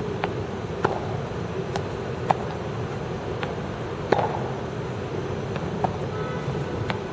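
Tennis balls being struck with rackets and bouncing on the court: short sharp pops about every half second to second, the loudest a little past four seconds in, over a steady background hum.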